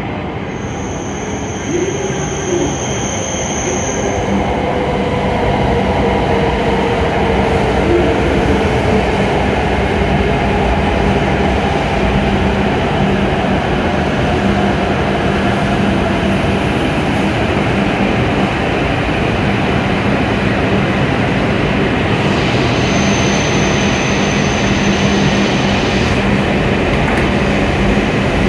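E7 series Shinkansen trainset pulling out of a station platform: its running and wheel noise builds over the first several seconds as it gathers speed, then holds steady as the cars slide past. A thin high tone sounds briefly near the start and again near the end.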